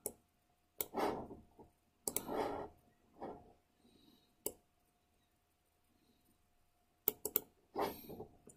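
Scattered sharp clicks and a few softer rubbing noises from working a computer mouse, with a quick cluster of clicks near the end.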